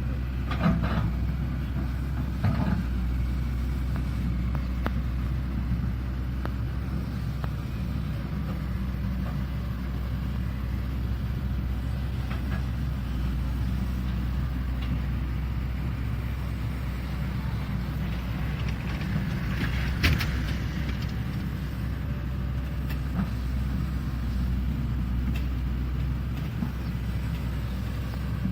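Shantui excavator's diesel engine running steadily under work, with a few short sharp knocks: two in the first few seconds and the loudest about twenty seconds in.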